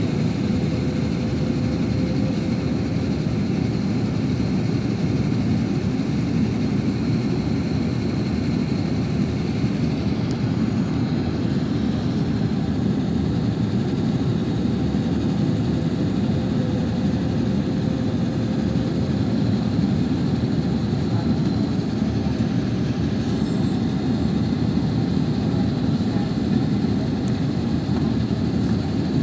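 Steady cabin noise of an Airbus A330-900neo on descent, heard from a window seat over the wing: a low, even rush of airflow and engine noise from its Rolls-Royce Trent 7000 engines, with a faint steady whine above it.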